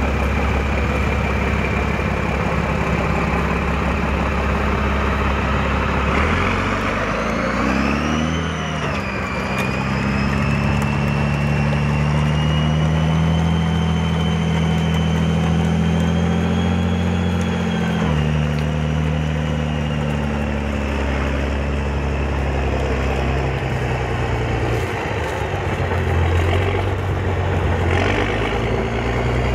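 Armoured military vehicle engine running. It revs up about six seconds in, holds at higher revs with a high whine that rises along with it, and drops back to a lower note about eighteen seconds in.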